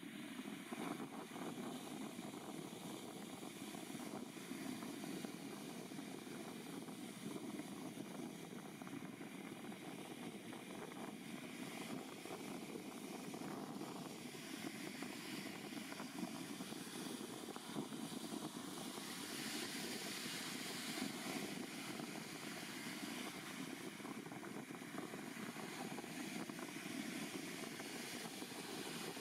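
ATR-72 twin-turboprop airliner climbing out after takeoff, its engines and propellers heard as a steady drone.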